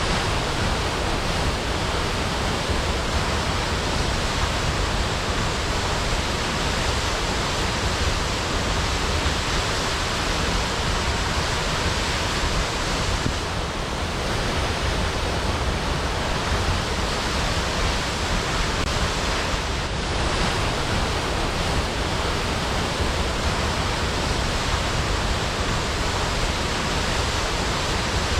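Waterfall: a steady, unbroken rush of falling water, dense from low rumble to high hiss.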